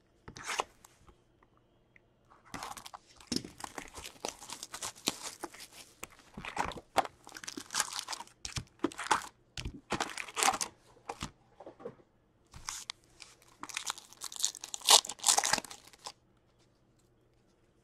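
Hockey card box and its foil card packs being handled and ripped open: crinkling, tearing wrappers and rustling cardboard in irregular bursts for most of the time, stopping a couple of seconds before the end.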